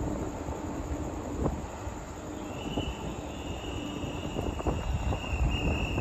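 Freight train hauled by an R100-class diesel-electric locomotive approaching slowly: a low rumble with scattered clanks, and a high, steady wheel squeal setting in about halfway through.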